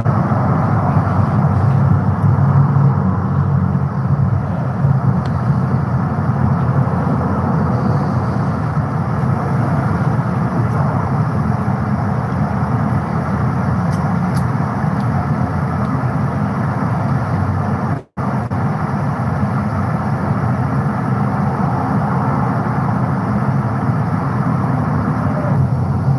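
Steady vehicle and road noise, a constant low hum with a rushing layer above it. It cuts out for an instant about two-thirds of the way through.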